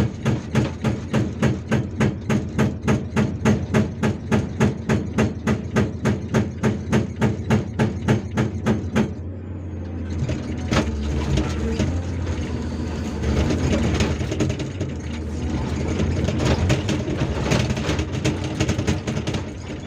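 Hydraulic breaker hammer on a Hyundai R480LC-9S excavator pounding rock in a fast, even rhythm of about three blows a second, stopping suddenly about nine seconds in. After that the excavator's diesel engine keeps running, with a few scattered knocks.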